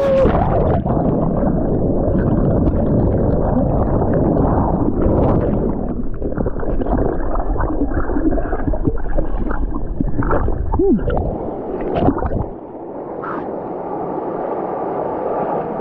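Mountain stream water rushing and gurgling, heard loud and muffled; the deep part of the rush falls away about twelve and a half seconds in.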